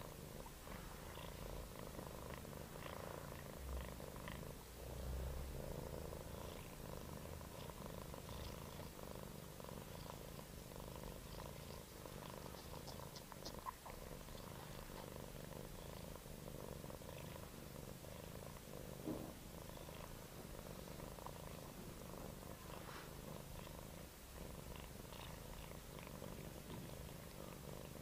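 Domestic cat purring steadily, close to the microphone, with a few small clicks.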